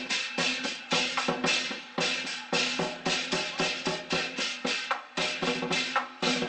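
Temple-procession percussion: drums with gongs and cymbals struck in a fast, steady rhythm of several beats a second, over a steady ringing tone.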